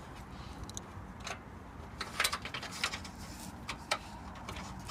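Metal end clamp being slid onto a solar panel mounting rail and seated against the panel frame: a few light metallic clicks and scrapes, clustered about two seconds in, with another sharp click near the four-second mark.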